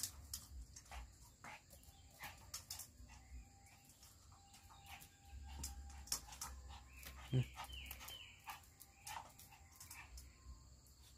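Small white spitz-type dog whining and yipping in short, high wavering calls as it begs on its hind legs for a bowl of food, among scattered light clicks. One loud thump comes about two-thirds of the way in.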